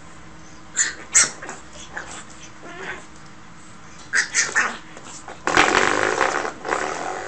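Pug puppy yipping and growling in play, in short separate sounds, with a louder, longer burst of noise a little past halfway through.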